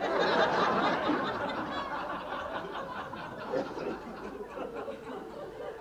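Theatre audience laughing, loudest at the start and slowly dying away.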